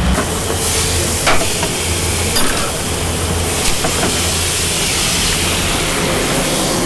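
Sundae soup boiling hard in a black earthenware pot (ttukbaegi) on a gas burner: a dense, steady bubbling hiss over a low steady hum, with a few light knocks.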